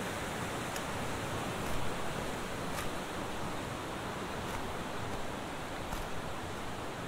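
Steady rush of a mountain river flowing over rocks in a canyon, with faint footsteps on a leaf-covered dirt path every second or so.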